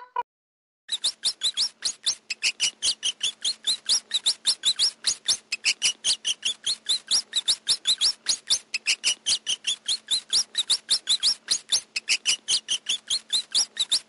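Hamster squeaking in a rapid, very even run of short high-pitched chirps, about five a second, each rising in pitch, starting about a second in.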